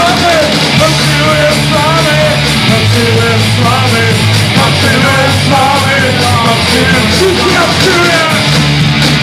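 Rock band playing loudly: drums and a bass line changing notes under a wavering lead melody.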